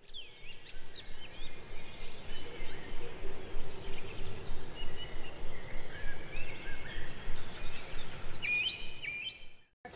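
Outdoor ambience of birds chirping and calling over a constant rushing noise, with the calls busiest near the end; it cuts off abruptly just before the end.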